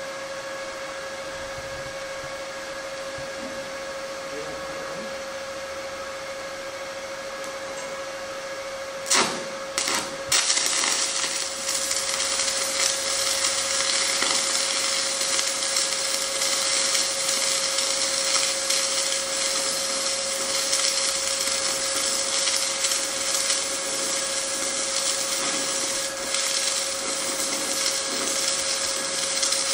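Stick-welding arc from a 6010 electrode at about 65 amps on a Lincoln Sprinter 180Si inverter in Crisp Arc mode. A steady hum holds for about nine seconds, then two sharp strikes about a second apart as the arc is struck. The arc then burns on loud and steady, crisp and digging the whole time.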